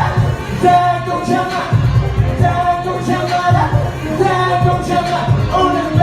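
Pop band playing a song with a sung melody over a steady beat of kick drum and bass.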